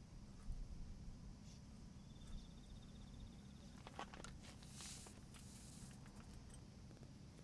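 Near silence: a faint low rumble of wind on the microphone, with a brief faint high trill about two seconds in, and a few faint clicks and a short hiss around four to five seconds in.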